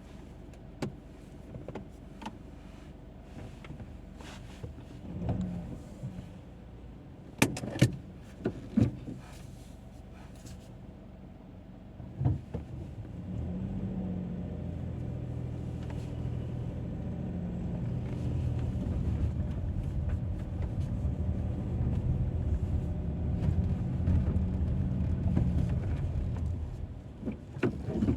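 Car cabin: a few sharp clicks and knocks, then from about halfway the car's engine and road noise come up and hold a steady low hum that grows slowly louder as it drives, easing off near the end.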